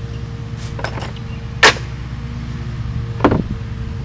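Sharp metallic clicks of hand work on a push mower's engine, the loudest about a second and a half in and another near the end, over a steady low motor hum.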